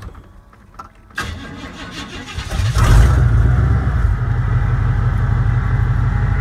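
Starter cranking a cold pickup engine for about a second and a half; the engine catches about three seconds in and settles into a steady idle.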